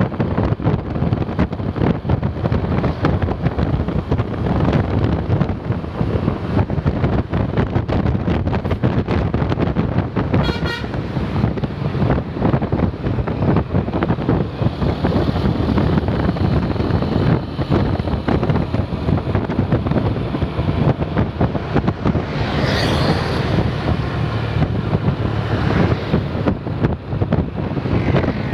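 Double-decker bus engine running loudly with wind buffeting the microphone, and brief toots of a multi-tone telolet horn, once about ten seconds in and again around twenty-two seconds.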